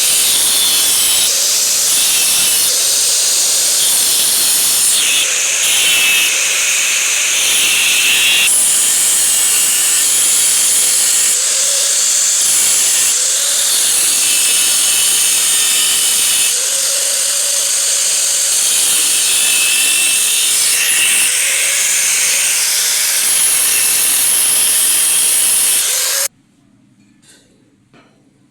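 Steel being machined: a loud, steady hissing grind of a tool working the metal, shifting slightly in pitch now and then, which cuts off suddenly near the end.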